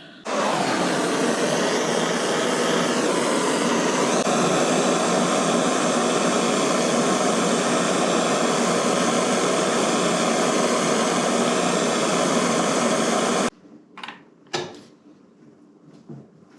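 Electric heat gun switched on and run at full heat, a steady fan whir with a slight wavering in pitch about three to four seconds in, then switched off abruptly near the end. It is heating a stuck triple-tree top nut to free it.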